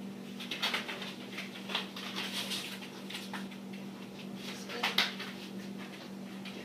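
A dog and its handler walking at heel over foam floor mats: soft, irregular patters and rustles, the loudest about five seconds in, over a steady low hum.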